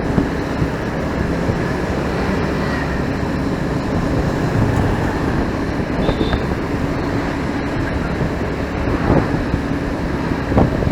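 Riding a motorcycle in traffic: a steady rumble of engine, tyres and wind.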